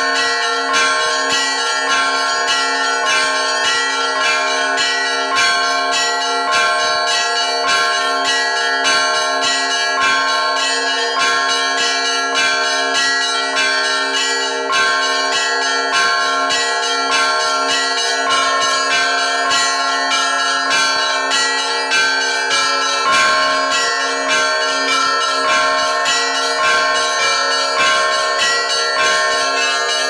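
Russian Orthodox church bells rung by hand-pulled ropes on their clappers: several bells struck in quick succession, several strikes a second, their ringing overlapping into one continuous peal.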